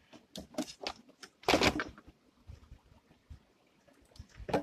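Handling noise of wiring and plastic covers in a car's engine bay: a few short, irregular rustles and clicks, the longest and loudest a brief scrape about a second and a half in.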